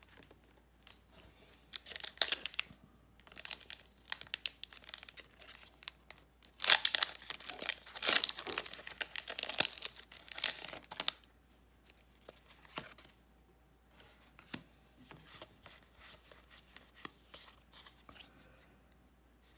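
Foil Pokémon TCG booster pack wrapper being torn open and crinkled. The tearing and crackling is loudest in a stretch of several seconds near the middle, with softer rustling of the wrapper and cards before and after it.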